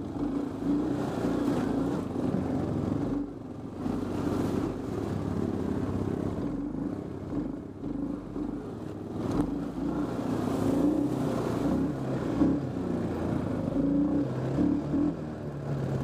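Honda TRX350 Fourtrax ATV's single-cylinder four-stroke engine running under varying throttle while driving through mud puddles, easing off briefly a couple of times. Water splashes up around the front wheels.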